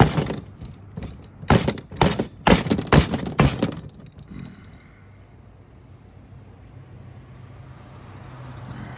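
A car A/C blower fan wheel packed with flood mud being knocked down hard on a table, about six heavy thuds in the first four seconds, shaking the caked mud loose.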